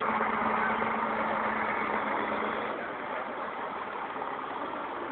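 An engine running with a steady hum, under a noisy rush. The hum drops away a little past halfway, and the sound gets slightly quieter.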